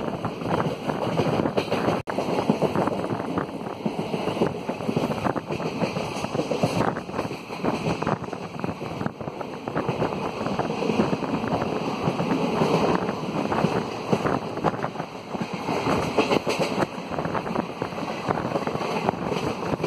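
Passenger train running at speed: a steady rumble of the carriage on the track mixed with wind rushing past the microphone at an open window.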